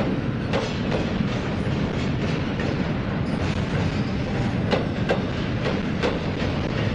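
Double-stack intermodal well cars rolling past on steel wheels: a steady low rumble with sharp clicks in pairs, once about a second in and twice more around five to six seconds in, as the wheel sets cross rail joints.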